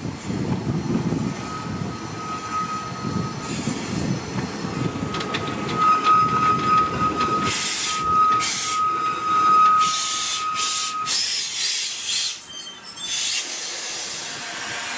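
1906 Hunslet narrow-gauge steam tank locomotive and its carriages rolling slowly into a station. A steady high-pitched squeal runs through most of it, and bursts of steam hissing come in the second half as the train draws to a stop.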